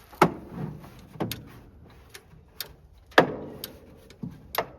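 A series of irregular sharp knocks and clicks, about eight in all, each ringing briefly; the loudest comes a little past three seconds in.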